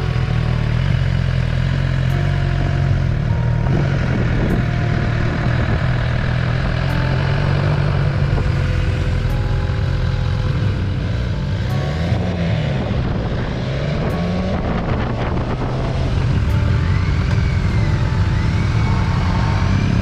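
Motorcycle engine running at low road speed, heard from the rider's seat, with its pitch rising and falling a few times around the middle as the bike slows and pulls away again.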